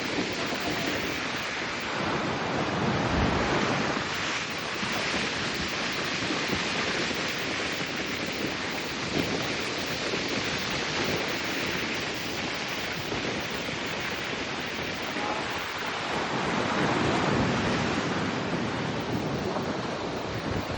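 Ocean surf breaking and washing onto the shore: a steady rush of noise that swells and eases as the waves come in, with some wind on the microphone.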